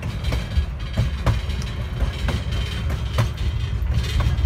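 Narrow-gauge railroad passenger car rolling along the track, heard from its open end platform: a steady low rumble broken by irregular clicks and knocks from the wheels on the rails.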